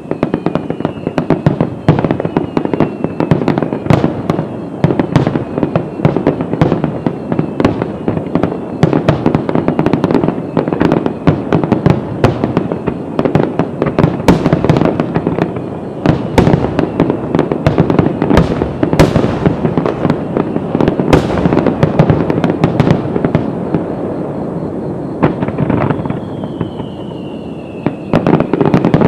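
Japanese fireworks display in a rapid-fire barrage: shells bursting one after another in dense booms and crackling. A high falling whistle sounds near the start and another near the end.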